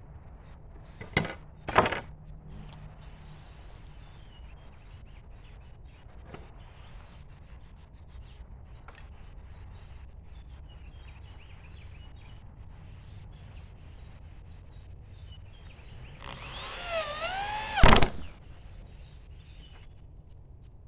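Two knocks on wood near the start. Later a power drill drives a screw into wood for about two seconds, its whine dipping and rising in pitch as it slows under load, and ends on a loud sharp hit.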